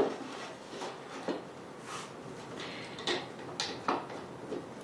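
Light wooden knocks and clicks as a plywood fence is handled and seated on a plywood lathe jig: a few separate taps, the sharpest three of them between about three and four seconds in.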